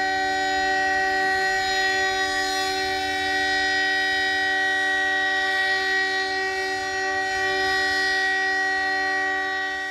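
Emergency alarm tone: a single loud, steady chord of several notes held without any change in pitch or level.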